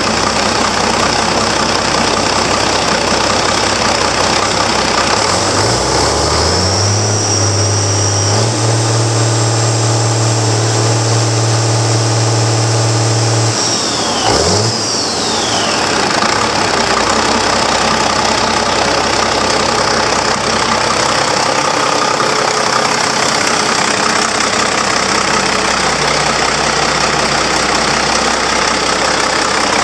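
Caterpillar 3306 PC aftercooled inline-six turbo diesel running. It idles, then is revved up about six seconds in and held at high speed for about five seconds. Around fourteen seconds in it drops back quickly to idle, and it keeps idling.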